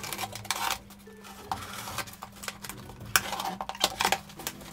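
A knife blade slitting the packing tape on a cardboard box: a series of short, scratchy rasps as the blade drags through the tape and scrapes the cardboard.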